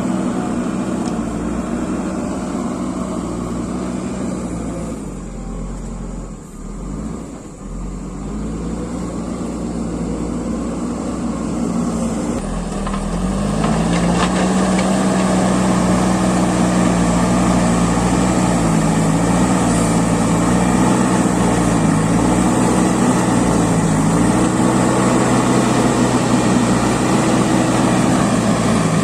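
JCB backhoe loader's diesel engine running under changing load. It sags in pitch and loudness for a few seconds, then picks up and runs louder from about halfway, its pitch wavering up and down as the machine works.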